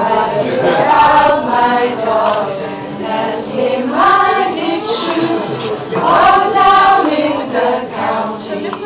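A group of mostly female voices singing a song together, accompanied by an acoustic guitar.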